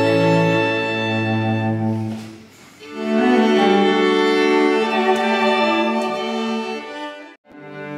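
A string quintet of violins, cello and double bass playing slow, sustained chords. The music softens to a brief pause about two seconds in, then resumes, and the sound cuts out abruptly for a moment near the end.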